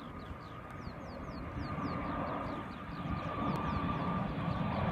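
Jet engines of a Boeing RC-135W Rivet Joint in flight: a low rumble with a steady whine above it, growing louder. The aircraft has four CFM56 turbofans.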